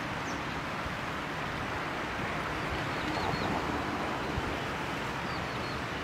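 Steady rush of flowing water, with a few faint, short, high bird chirps around the middle and again near the end.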